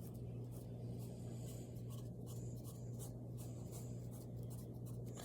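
Scratchy strokes of a drawing tool colouring in on paper, over a steady low hum.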